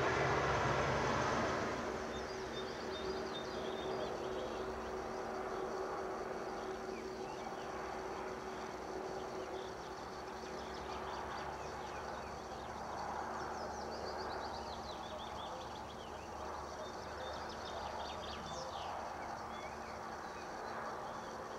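Songbirds singing in the background, with a common cuckoo calling partway through. A passing vehicle's rumble fades out about two seconds in.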